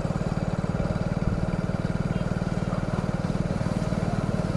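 Motorcycle engine running steadily at a constant speed, heard close up from the moving bike, an even rapid throb with no change in pace.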